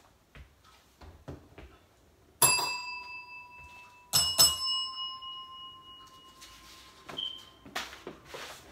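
Tabletop service bell struck three times: one ding about two and a half seconds in, then two quick dings about four seconds in, each ringing out over a second or two. A short papery rustle follows near the end.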